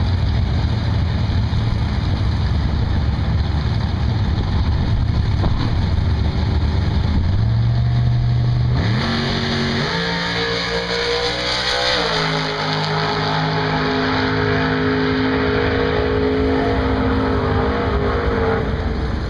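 Drag race car engine rumbling low, then revving up with its pitch climbing in steps from about eight seconds in, and running at a steady higher note until near the end.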